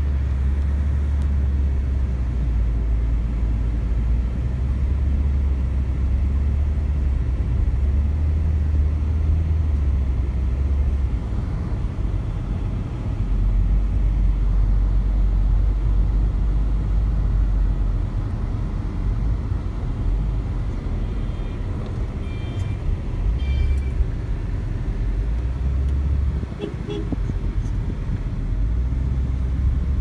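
Low, steady rumble of a car driving, heard from inside the cabin: engine and road noise, the deep drone dropping and rising in pitch a few times. A few brief high chirps sound about three-quarters of the way through.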